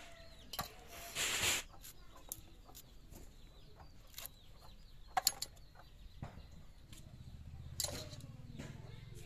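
A hen clucking now and then, over sharp clicks and a brief scraping rush a little over a second in, from fish and okra being cut on an upright curved boti blade.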